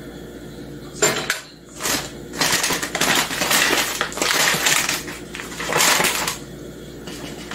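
Paper flour bag crinkling and rustling as it is handled and flour is scooped from it with a plastic measuring cup. The sound comes in several bursts, the longest about two seconds.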